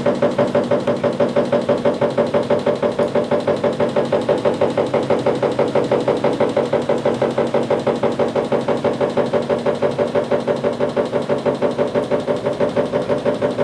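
EDISON single-tub mini washing machine (E0001-A40) on its spin-dry cycle, its spin basket packed full of clothes: a steady motor run with an even pulse several times a second.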